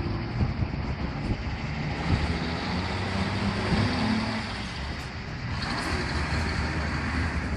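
Road traffic: city buses and cars driving across a level crossing, their engines running with most of the sound low in pitch, over a steady wash of tyre and traffic noise.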